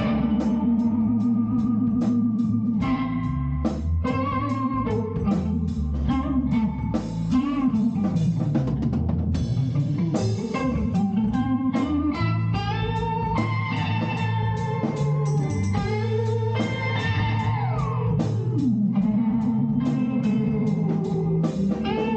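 Band playing an instrumental blues-rock jam: guitar lines with sliding, bending notes over a bass line and a drum kit.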